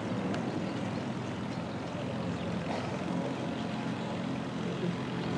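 Steady low rumble of outdoor background noise, engine-like, with no distinct events.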